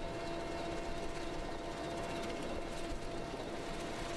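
Helicopter in flight heard from on board: a dense, steady rush of rotor and turbine noise with a constant whine running through it.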